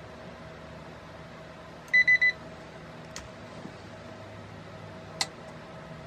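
Three quick, high electronic beeps about two seconds in, then two sharp clicks, one about a second later and one near the end, over a steady faint hum.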